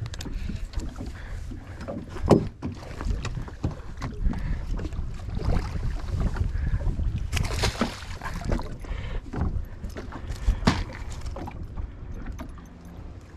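Knocks and thumps of someone moving about and handling gear in a fishing boat, over a steady low rumble of wind on the microphone. The loudest knock comes about two seconds in, with more near the middle and about ten seconds in.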